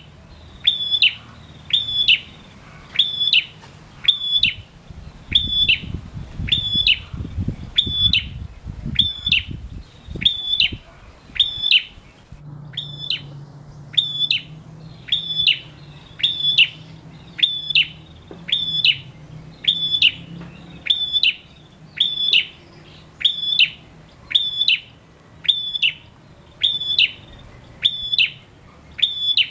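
Male prenjak singing one sharp, high call over and over in a steady rhythm, about once a second.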